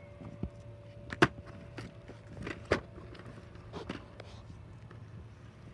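Handling of a plastic clamshell VHS case and its paper insert card: a few scattered clicks and taps, the sharpest about a second in, over a faint steady hum.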